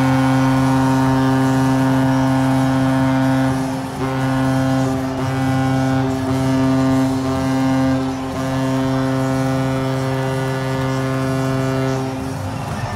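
Hockey arena horn blowing one long, loud, steady note, wavering briefly a few times and stopping near the end.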